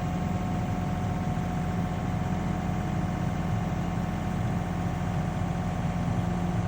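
An engine idling steadily, with an even, unchanging hum.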